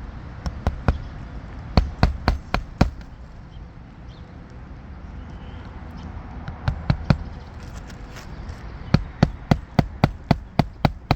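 Hammer blows on an asphalt shingle roof, most likely driving roofing nails during a shingle repair. They come in short runs: a few at the start, five quick strikes about two seconds in, three more near the middle, and a steady run of about four a second near the end.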